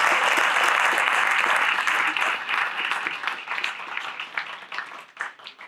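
Congregation applauding. The clapping is full at first, then thins out and dies away near the end.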